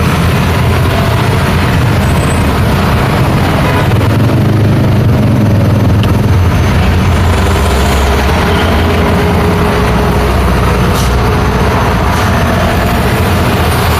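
Busy road traffic with heavy vehicles passing, a steady low rumble of truck and bus engines and tyre noise.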